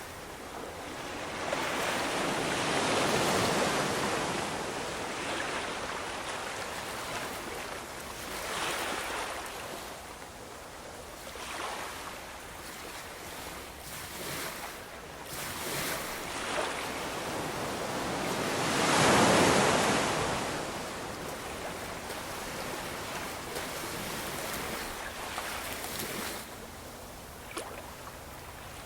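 Ocean waves breaking and washing on a shore, with larger surges about 3 seconds in and again near the middle.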